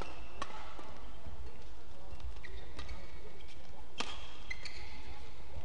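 Badminton rackets striking a shuttlecock back and forth in a doubles rally, sharp hits roughly once a second, with short squeaks of court shoes on the floor partway through, over a steady low hall hum.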